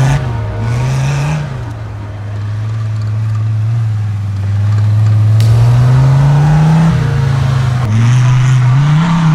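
Off-road buggy's engine pulling away under throttle, its note rising and falling back several times as it is revved, highest around seven seconds in and again near the end.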